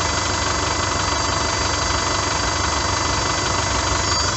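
Chevrolet Colorado's 2.8L Duramax four-cylinder turbodiesel idling, with steady high tones over the engine note. The electric fuel pump is running loud, which the owner puts down to air still being worked out of the fuel system after the filter change.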